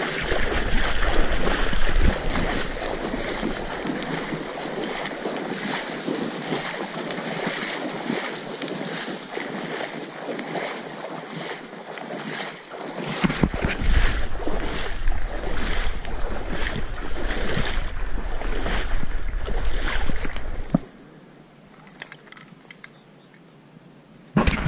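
Water splashing and sloshing in a rhythm of roughly one stroke a second as a retriever swims through shallow marsh water, with wind buffeting the microphone at times. The splashing stops about 21 s in, leaving a low hiss, and a sharp knock comes just before the end.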